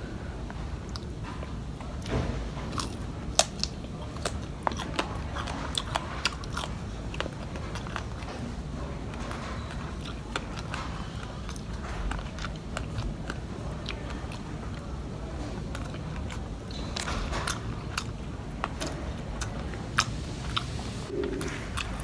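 Close-up chewing of fried catfish and rice, with frequent short, sharp crunches and mouth clicks, over a low steady hum.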